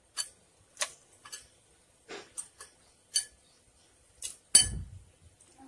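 Pieces of raw beef being dropped by hand into an aluminium pressure cooker: a scatter of light taps and clinks against the pot, with a louder thump about four and a half seconds in.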